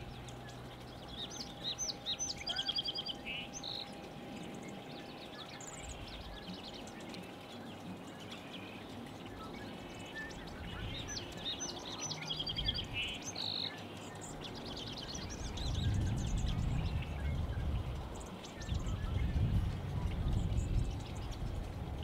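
A small songbird singing the same short song twice, about ten seconds apart: a few quick, high, down-slurred notes running into a trill. Two bouts of low rumble come in the second half.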